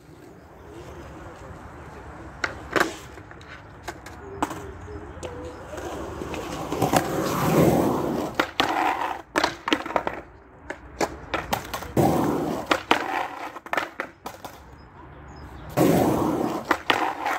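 Skateboard wheels rolling over concrete, swelling loud as the board passes close about seven, twelve and sixteen seconds in, with sharp clacks and knocks of the board popping, striking and landing.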